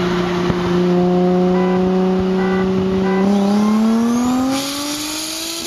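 Twin-charged Nissan 350Z's 3.5-litre V6 running at a steady note alongside, then accelerating about three seconds in, its pitch climbing steadily. A faint high whine rises over it near the middle.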